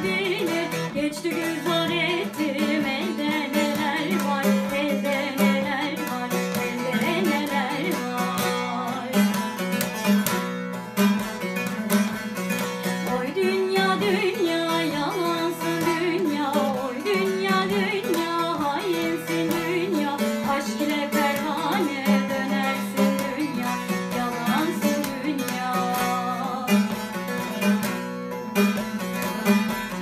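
Bağlama (saz), a long-necked Turkish lute, played continuously in a folk melody over a steady drone, with a woman's voice singing along.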